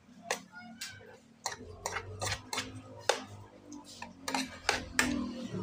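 Metal fork and spoon clinking and scraping against ceramic plates and a bowl while eating, many quick sharp clicks, over a faint low hum from about a second and a half in.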